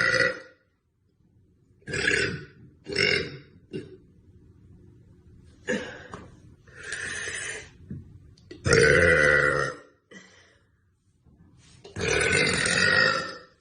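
A young woman burping repeatedly: a series of about seven separate belches, some short and some drawn out, with the longest and loudest near the middle and near the end.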